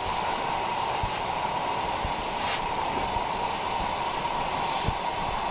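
Strong wind blowing steadily, with a few faint low thumps.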